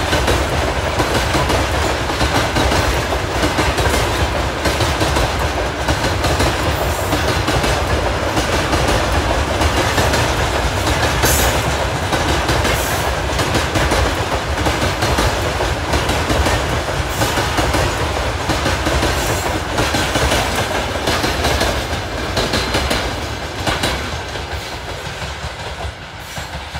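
Freight train of covered hopper wagons rolling past, a steady rumble with the wheels clacking over the rail joints. The sound dies away over the last few seconds as the end of the train goes by.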